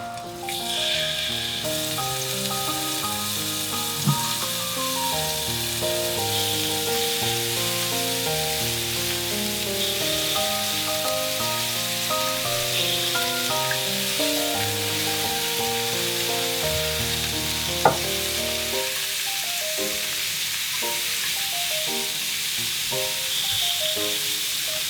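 Pork and vegetables sizzling steadily as they stir-fry in oil in a frying pan, with two sharp knocks, one about four seconds in and a louder one near eighteen seconds.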